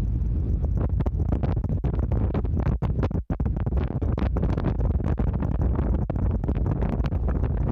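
Wind buffeting the microphone on the deck of a sightseeing icebreaker, a heavy low rumble broken by frequent short crackles, with a brief dropout a little over three seconds in.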